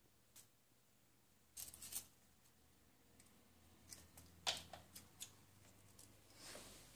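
Faint snips of scissors cutting through orchid flower stalks, one stalk being cut into short pieces. There is a cluster of snips about one and a half seconds in and several more around four and a half to five seconds.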